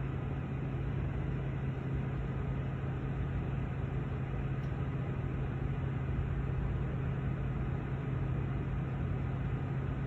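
Bucket truck's engine running steadily, a constant low hum with no change in pitch.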